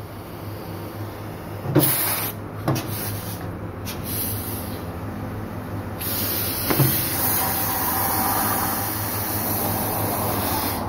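Tyre-changer and workshop machinery humming steadily, with a few sharp knocks as the wheel and tyre are handled. About six seconds in, a steady hiss of air begins and keeps going.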